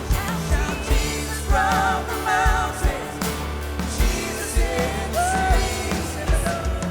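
Live worship band playing the song's instrumental ending: drums keeping a steady beat under bass, synth and piano chords, with a wavering melody line on top.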